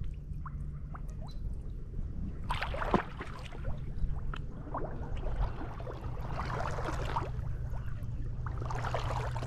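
Shallow marsh water sloshing and splashing in irregular bursts as someone wades through it.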